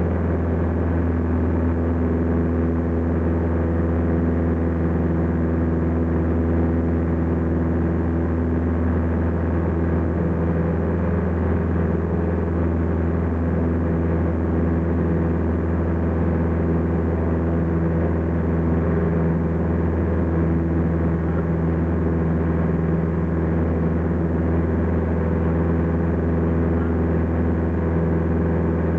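Piper PA-38 Tomahawk's four-cylinder engine and propeller running at climb power in a steady, loud drone as the aircraft climbs out after take-off.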